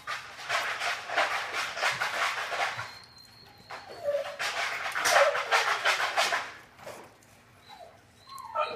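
A dog licking and chewing mashed pumpkin off a plate: wet smacking and lapping, in two long spells with a short pause between.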